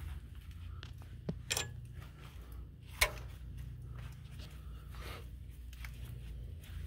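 Footsteps and handling noise over a steady low rumble, with a few sharp clicks, the loudest about three seconds in.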